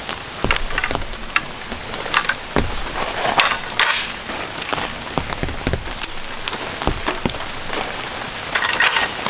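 Steady rain pattering, with scattered knocks and short metallic clinks as tarp poles are handled and set down on gravel.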